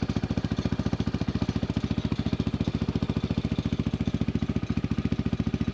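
Small engine running steadily at low speed, with a rapid even putter of about fourteen beats a second.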